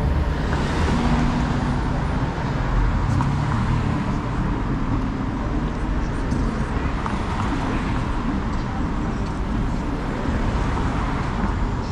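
City street traffic: cars rolling slowly through an intersection, a steady mix of engine rumble and tyre noise.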